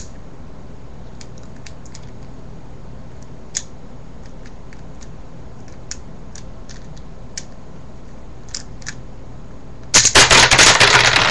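A few faint clicks as the layers of a V-Cube 4 (4x4 puzzle cube) are turned, then about ten seconds in the cube, with two of its pieces taken out, bursts apart and its plastic pieces clatter loudly onto a wooden table.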